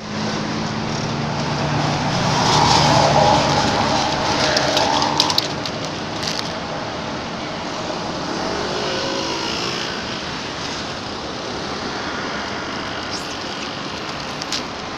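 Steady traffic noise from a nearby motor vehicle engine, loudest about two to four seconds in, with a few short crackles of a plastic snack wrapper being handled.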